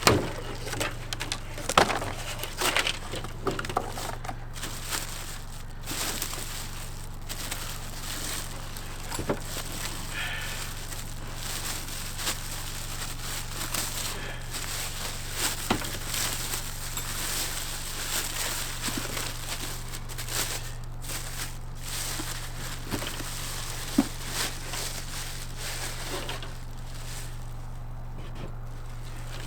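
Cardboard box and packing material being rustled, crumpled and knocked about as a small generator is worked out of its box: irregular crinkling and scattered sharp clicks and bumps.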